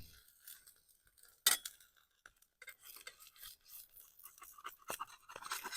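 A metal flipper clinking and scraping in a frying pan as fried eggs are checked and lifted, with one sharper clink about a second and a half in.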